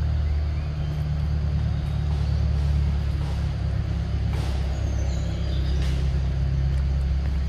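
A steady low rumble throughout, with a few faint, short high chirps from birds and a couple of soft clicks about four and six seconds in.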